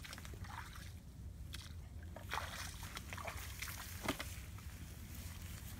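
Water sloshing and dripping in a metal basin as hands work a plucked chicken, with scattered small clicks. Two louder splashes or knocks stand out, about two and a half and four seconds in.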